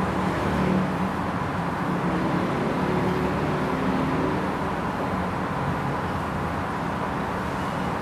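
Steady low background rumble with a faint constant hum, with no distinct events.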